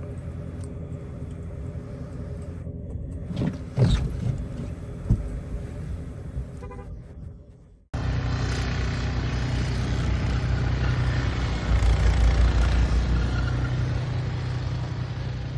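Road vehicle sounds, with a short car-horn toot about four seconds in. About halfway through, the sound cuts abruptly to a louder, steadier engine and road rumble.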